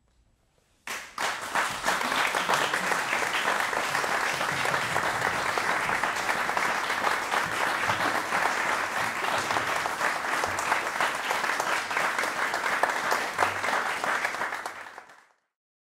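Audience applauding: dense clapping starts suddenly about a second in, holds steady, then fades out near the end.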